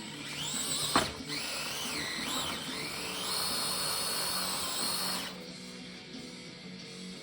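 Small RC crawler's 50-turn electric motor and gearing whining under throttle, the pitch rising and falling as the throttle is worked, with one sharp click about a second in. The whine stops about five seconds in, leaving background music.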